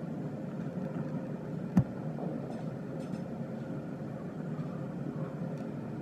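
Steady low background rumble, with a single sharp knock a little under two seconds in.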